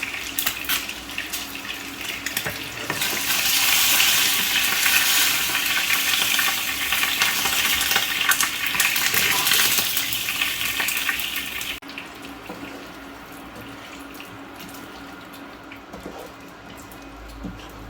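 Water running from a kitchen tap into a sink, getting louder a few seconds in and cutting off suddenly about two-thirds of the way through, followed by a few small clicks.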